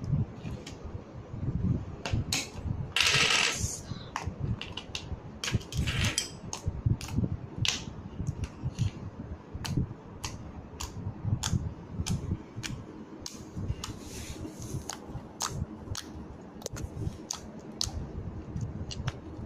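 Slime being squished and pressed by hand, making irregular sticky pops and clicks over a low handling rumble, with a louder squelching burst about three seconds in.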